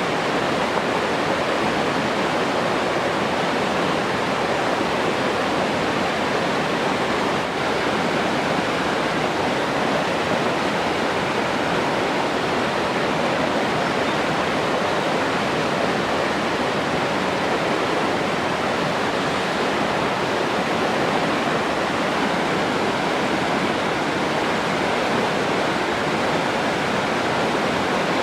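Steady rushing of flowing water, an even, unbroken wash of sound.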